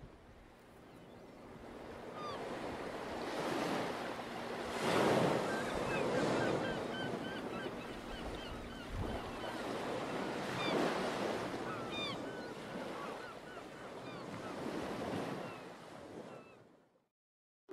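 Ocean surf, waves breaking in slow swells every few seconds, with birds chirping above it. The sound fades in at the start and fades out near the end.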